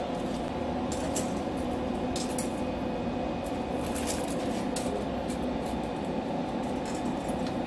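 Scattered light metal clicks and clinks as a steel axle rod is handled in the tubular steel frame of a folding hand cart, over a steady hum.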